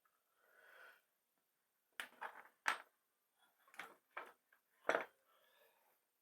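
Tools and leather being handled on a workbench: a soft rustle, then a series of about six light knocks and clicks, and a brief rustle near the end.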